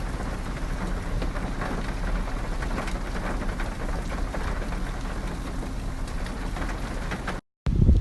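Steady rainfall: many small drop hits over a low steady rumble, cutting off suddenly near the end.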